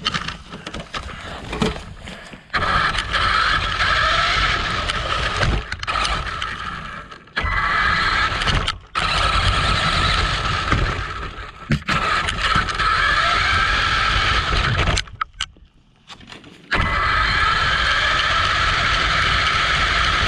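Radio-controlled buggy's motor and drivetrain whining under throttle as it drives over pavement, with rough tyre and road noise, heard from on board. The whine drops out several times when the throttle is let off, for about a second and a half near the end.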